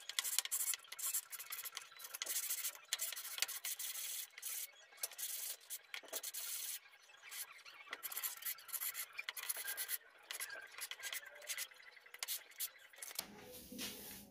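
Plywood rubbed back and forth by hand on a sheet of sandpaper laid flat on a table: repeated scratchy sanding strokes at an uneven pace. Near the end the strokes stop and a softer, lower rustle follows.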